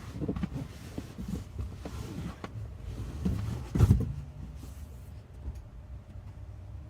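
Handling noises: scattered knocks and rustling, with one louder thump about four seconds in, then quieter.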